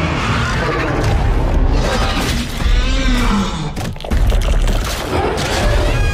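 Monster-battle film soundtrack: deep booms and rumble under music, with a creature's gliding, screeching roar about halfway through.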